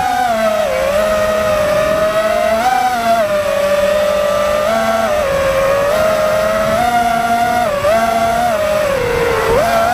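FPV quadcopter's brushless motors whining, the pitch stepping up and down every second or so as the throttle changes, with a deeper dip and sharp rise near the end.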